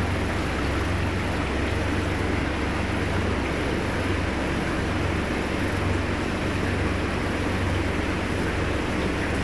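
Aquarium pump running: a steady low mains hum with a constant hiss over it.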